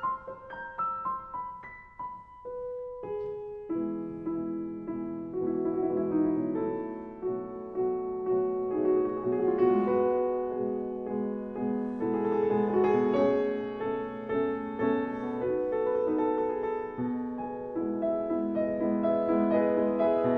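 Background piano music: a few single notes at first, then fuller chords from about four seconds in.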